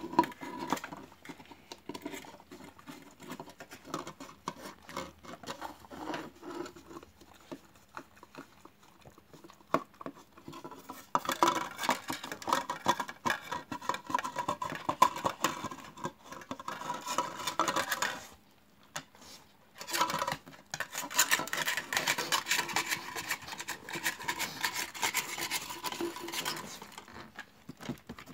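A dog licking out small plastic tubs, with quick wet licks as the tubs knock and scrape across wooden floorboards. It comes in two busy stretches with a pause of about two seconds between them.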